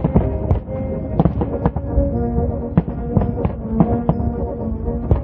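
Fireworks display: many sharp bangs and pops, several a second and irregular, over music with held brass notes.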